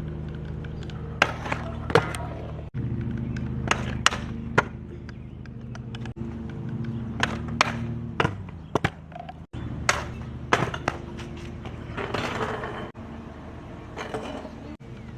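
Stunt scooter landing tricks on a homemade rail and coping: a series of sharp clacks from the wheels and deck, with short stretches of rolling wheel noise, over a steady low hum.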